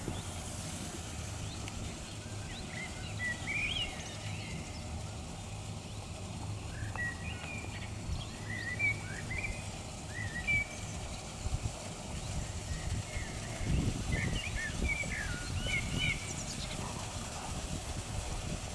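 Wild songbirds chirping outdoors: many short, high chirps and twitters scattered through, over a steady low background rumble, with a brief low rumble about three-quarters of the way through.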